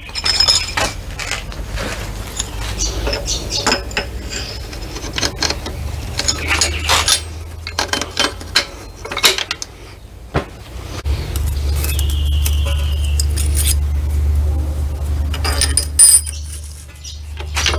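Steel transmission gears and parts clinking and scraping as they are worked by hand onto a splined shaft in the open gearbox of a Case 580SK backhoe. A low steady rumble runs under the second half.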